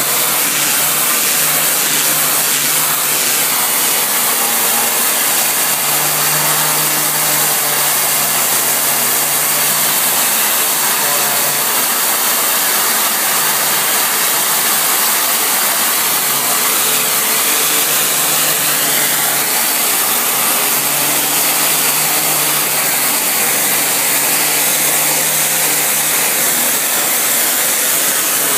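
Pressure washer running steadily: the high-pressure water jet hisses over the machine's constant motor hum.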